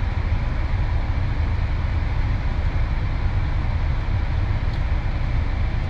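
Steady low road and engine rumble of a car being driven, heard from inside the cabin.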